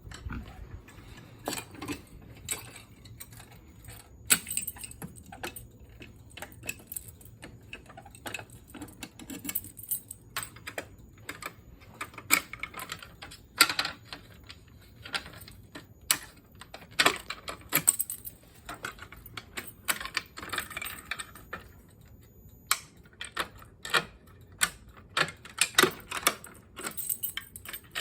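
Fire alarm pull stations being handled and reset: irregular clicks, clacks and rattles, some sharp and loud, coming in uneven clusters with a short lull about two-thirds of the way through.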